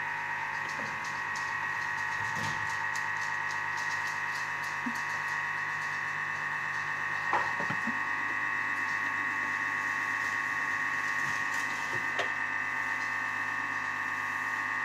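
Thermomix food processor's motor running steadily at speed 3, beating four eggs in its mixing bowl: a constant whine over a low hum, with a couple of light knocks partway through.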